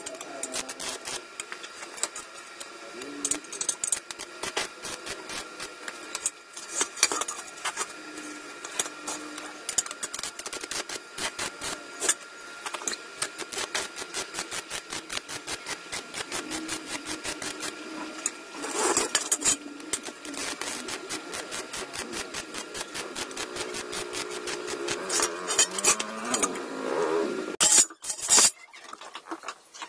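Arc welding on steel square tubing: the arc crackles and sputters in a dense, irregular stream of sharp clicks, with louder flare-ups a few times and a break near the end.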